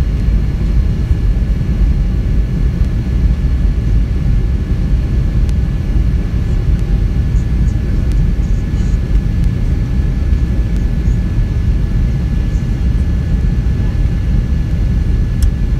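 Airliner cabin noise: a steady low rumble of jet engines and airflow heard from inside the passenger cabin.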